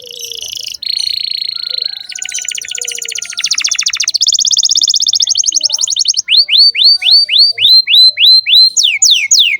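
Domestic canary in full song: rapid trills and runs of quickly repeated notes, changing from one phrase to the next. About two-thirds of the way in comes a loud series of upward-sweeping notes, about four a second, and near the end quicker downward-sweeping notes.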